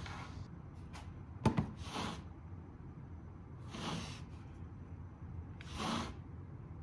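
Quiet handling noise from hands on a mouse and a tablet: a sharp tap about a second and a half in, and three soft swishes about two seconds apart.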